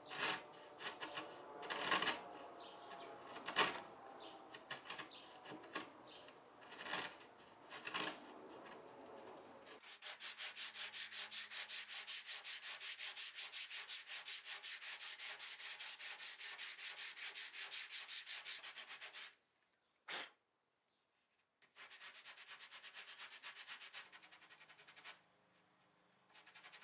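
Hand-shaping a glued-on walnut patch on a table corner: uneven scraping file strokes on the wood for about the first ten seconds, then quick, even back-and-forth strokes of a sanding block. The sanding stops about two-thirds through, a single tick follows, and a shorter run of sanding comes near the end.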